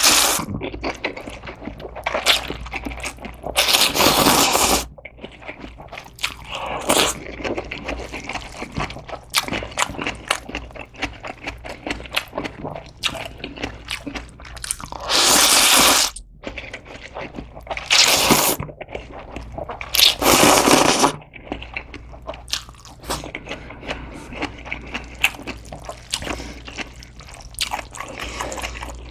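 A person eating noodles from anchovy-broth noodle soup: several loud, wet slurps of about a second each, with chewing and mouth clicks in between.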